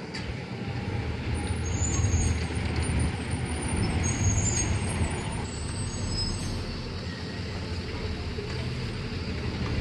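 Street traffic: a steady low engine rumble of motor vehicles, with faint high squeals a couple of seconds in.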